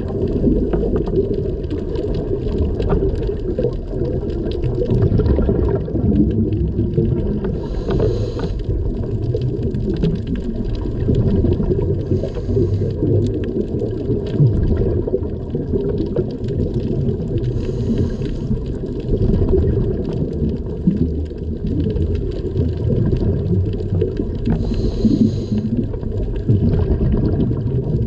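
Muffled underwater sound heard through a diver's camera housing: a steady low rumble of water and bubbles, with four short hisses from the diver's scuba regulator spread through it.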